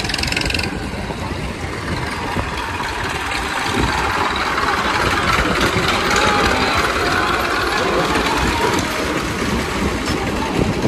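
Tractor diesel engine running as it pulls a loaded trolley past, getting louder as it comes close about four seconds in.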